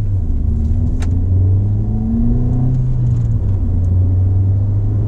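Ford Fiesta ST's turbocharged engine pulling under acceleration, its pitch climbing for about two seconds and then dropping back, over a steady low drone. A sharp click sounds about a second in.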